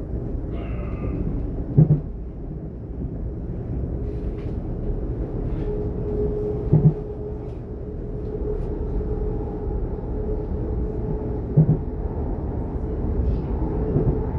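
Inside a DB Class 422 (ET 422) electric S-Bahn multiple unit under way: steady rumble of the wheels on the rails, with a steady whine from the traction equipment. Three double knocks, about five seconds apart, come from the wheelsets passing over rail joints.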